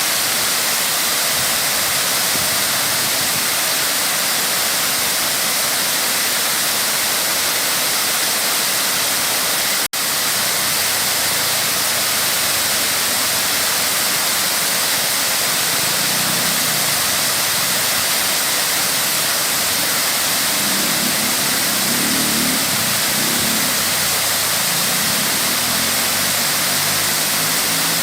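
Waterfall, a steady rush of falling water with a hiss-heavy spray. It cuts out for an instant about ten seconds in.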